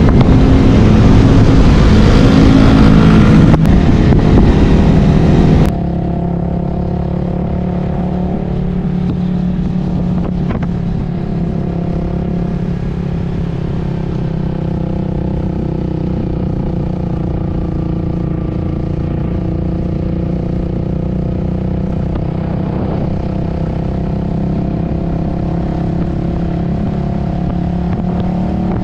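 Yamaha XSR 155's single-cylinder engine running steadily as the motorcycle is ridden under way. For about the first six seconds a loud rushing noise lies over it, then cuts off abruptly, leaving the engine note quieter and duller.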